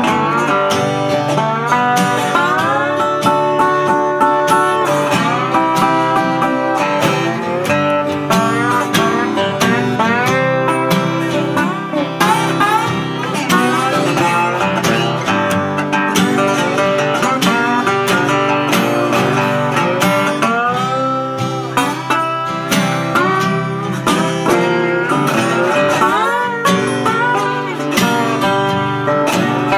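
Instrumental break of a folk-country song played live: guitars carry the music, with a lead line of notes that bend and slide in pitch.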